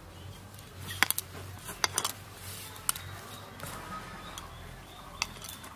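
Mashed boiled potato being mixed by hand in a ceramic bowl, with a few sharp clinks against the bowl, most of them about one and two seconds in.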